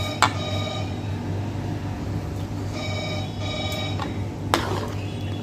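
A metal ladle stirring thick gravy in a large kadhai, knocking against the pan twice, once near the start and again near the end. The pan rings in clear bell-like tones after the knocks, over a steady low hum.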